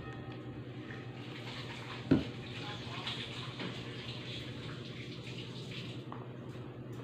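Steady hum and hiss of background noise, with a single sharp knock about two seconds in.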